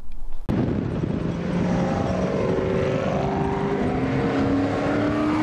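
A car engine running as a car drives along a road, with its pitch sliding slowly up and down; it starts suddenly about half a second in.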